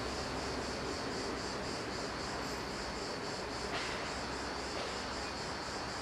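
Insects chirring, a high pulsing buzz that repeats evenly several times a second, over a steady outdoor hiss.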